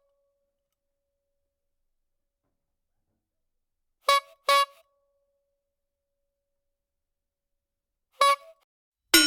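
Cartoon sound-effect samples played between silences: two short pitched notes about four seconds in, a single one about eight seconds in, then a louder ringing clang with a rising tone at the very end.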